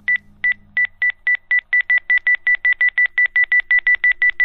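A rapid series of short electronic beeps at one high pitch, speeding up from about three a second to about six a second: an intro sound effect.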